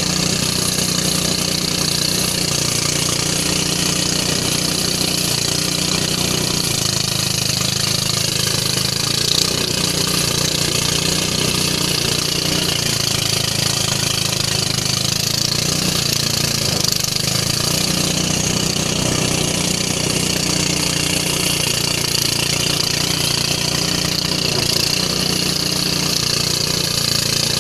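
Motorised rice thresher running steadily: the engine's constant drone, with a continuous high hiss as rice stalks are fed through the spinning threshing drum.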